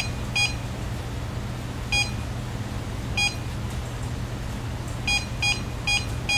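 Short electronic beeps from an EMF meter: a pair at the start, two single beeps over a second apart, then a quick regular run of about two and a half beeps a second from about five seconds in. A steady low hum runs underneath.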